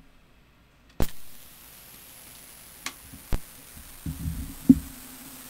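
A cassette deck starts playing: a sharp click about a second in, then steady tape hiss. Two small clicks and a short run of low thumps follow, and a low steady hum joins the hiss near the end.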